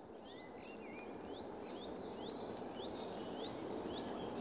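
Outdoor ambience fading in: a bird repeating short, quickly rising call notes, about two or three a second, over a steady background hush.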